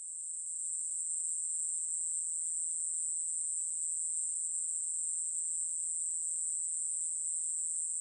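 Yeochi-bejjangi (여치베짱이) katydid singing: one continuous, high-pitched buzz that holds steady without a break.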